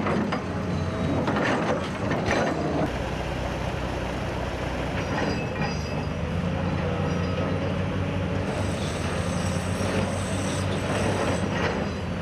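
Heavy construction machinery running at an excavation: a steady diesel engine drone with intermittent metal-on-metal clanks and squeals, and a high thin whine from about two-thirds of the way through.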